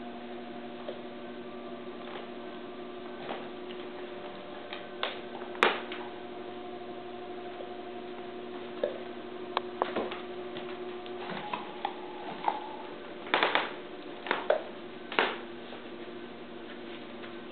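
Scattered sharp clicks and taps from a Doberman chasing bubbles on a hardwood floor and rug, with a cluster of louder ones about three quarters of the way through, over a steady electrical hum.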